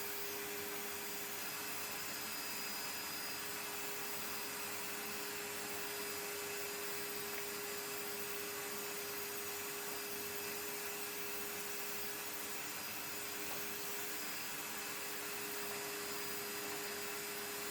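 Ramtons wet and dry vacuum cleaner running steadily: an even hiss with a steady hum tone. Its owner finds its suction weak even after cleaning it.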